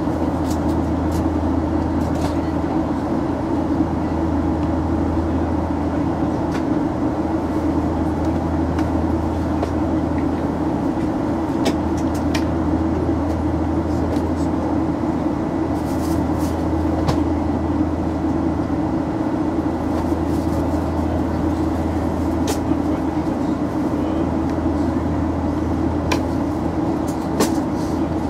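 Steady in-flight cabin noise of a Boeing 737-800: a constant rush of engine and airflow noise over a low hum, with a few faint clicks now and then.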